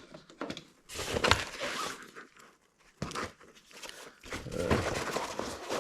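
Jumper cables and accessories being handled and pulled out of a soft carrying case, with irregular rustling of packaging in bursts about a second in, near three seconds, and again from about four seconds on.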